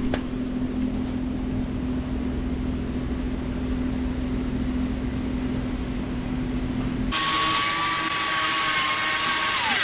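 A motor hums steadily for about seven seconds. Then a high-speed power tool starts suddenly and runs with a loud high-pitched whine, its pitch dropping just before it cuts off.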